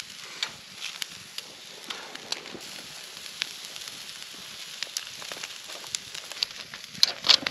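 Wood fire crackling and popping under a grill grate, with irregular sharp pops over a steady hiss and a louder flurry of pops about seven seconds in.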